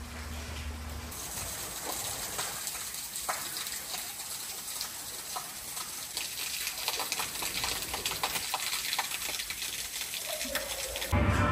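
Water running and splashing, a steady hiss full of small splashes that grows slightly louder, with music starting just before the end.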